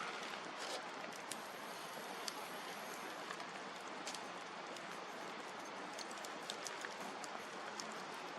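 Wood campfire burning with a steady hiss and irregular sharp crackles and pops.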